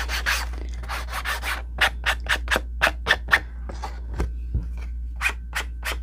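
Ink pad rubbed in short scratchy strokes along the edge of a kraft cardboard sheet, inking the edge, about three strokes a second. Two soft thumps about four seconds in.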